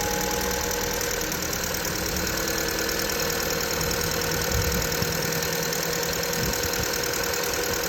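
VW Polo engine idling steadily, with a faint steady whistle from the alternator belt mixed in. The belt whistle is a cold-weather squeal, loud in hard frost and only slight at mild temperatures.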